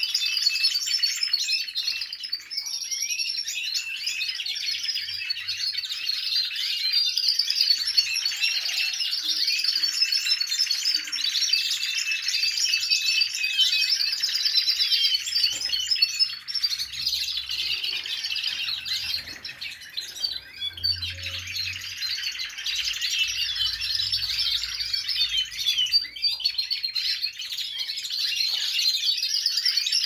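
A flock of domestic canaries singing together: many overlapping rapid trills and chirps with no break. The song of canaries coming back into voice after the moult, during their rest period.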